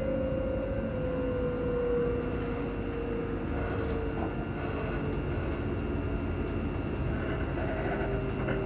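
Class 334 electric multiple unit's traction motors whining as the train slows into a station, the whine falling slowly in pitch over the steady rumble of the train running on the rails.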